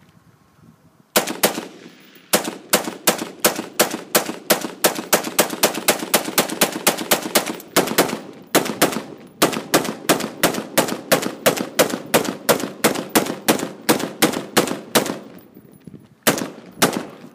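Rifle fired in rapid succession, about three shots a second, with one short pause midway. After a gap near the end, two final shots follow.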